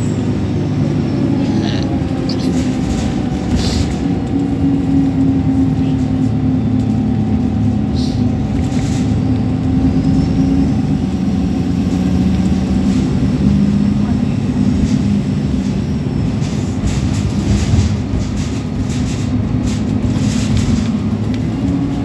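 Alexander Dennis Enviro 300 single-deck bus's diesel engine running under way, heard from inside the saloon: a steady low drone with a whine over it, the whine that bus fans call a hoover. Occasional short clicks and rattles come through it.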